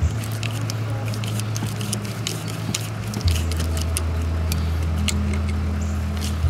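Scattered light clicks of a flathead screwdriver turning a worm-drive hose clamp tight on a radiator hose, over a steady low hum that gets louder and deeper about three seconds in.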